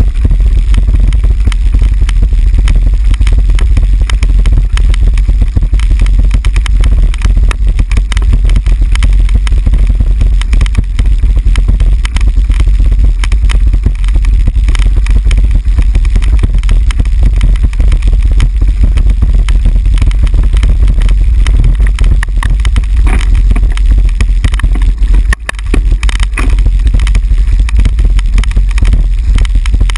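Heavy, unbroken rumble and dense rattling from a handlebar-mounted camera jolting over cobblestones as the bicycle rides, with wind buffeting the microphone.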